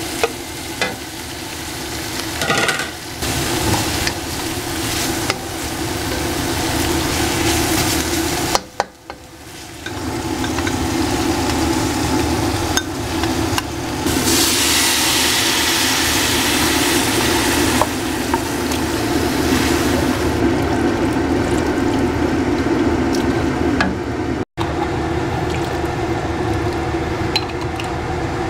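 Stir-frying in a wok: sliced onions, chillies and curry leaves sizzle in hot oil while a wooden spatula scrapes and taps the pan. About halfway through, liquid is poured into the hot wok with a loud hiss, after which the sizzle gives way to a softer simmer. A steady low hum runs underneath.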